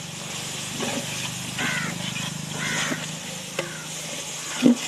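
A long metal ladle stirring in a large aluminium cooking pot, with scattered knocks and a sharp clank against the pot near the end, over a steady low engine hum. A couple of short chirps sound in the middle.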